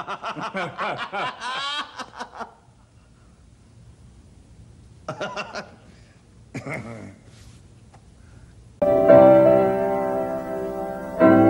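A man laughing heartily for about two seconds, with two short chuckles a few seconds later. About nine seconds in, piano/keyboard music starts and stays louder than the laughter.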